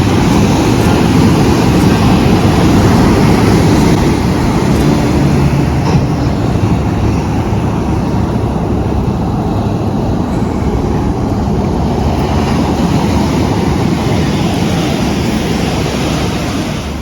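Heavy ocean surf crashing against jetty rocks: a loud, steady rushing rumble that eases a little after about four seconds.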